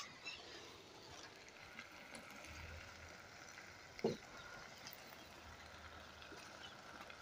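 Faint sizzling of soya chunks frying in oil in a kadhai over a wood fire, with a single soft knock about four seconds in.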